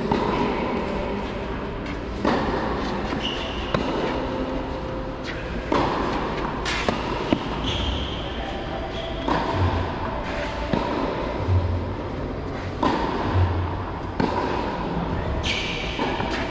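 Tennis rally on a clay court: racquets striking the ball every one and a half to two seconds, with the ball bouncing between strokes, the hits ringing in a large hall.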